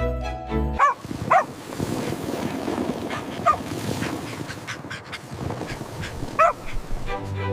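A puppy gives about four short, high yips and whimpers, with a steady rustling noise underneath. Background music cuts off just after the start and comes back at the very end.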